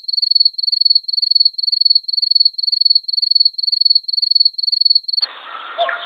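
Cricket chirping loudly in steady, evenly repeated high-pitched chirps, each a quick run of pulses. It stops suddenly about five seconds in, leaving a faint general background noise.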